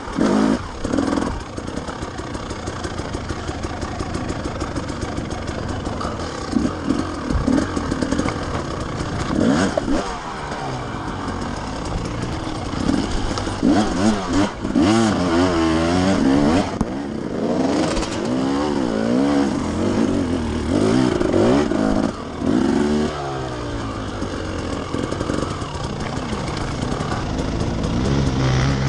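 Enduro dirt bike engine revving up and down over and over as it is worked up and down a rough, stony track. Knocks and clatter from the bike run through it.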